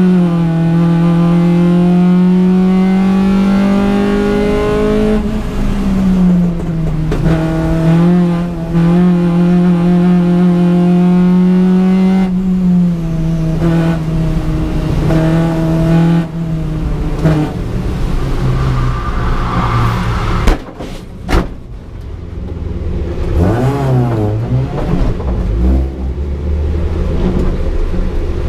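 Rally car engine heard from inside the cabin, held at high revs with steps in pitch at gear changes, then dropping to low revs as the car slows. Two sharp bangs come about twenty seconds in.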